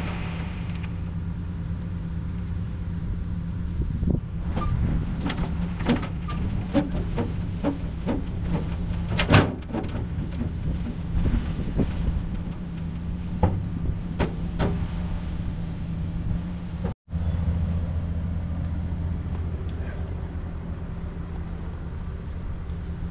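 Dump truck engine running steadily while its dump body is raised and a load of mulch slides out onto the pavement, with scattered knocks and clatters, the loudest about nine seconds in.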